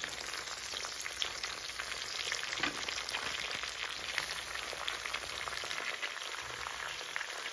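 Pork pieces and freshly added leafy greens (saag) sizzling in hot fat in a pot, with a steady hiss and fine crackling.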